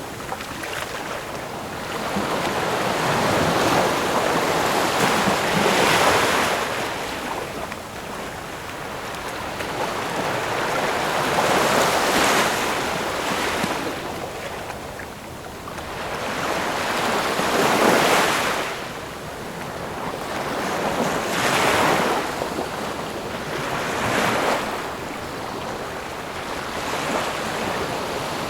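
Ocean waves breaking and washing in, the surf swelling and easing every few seconds.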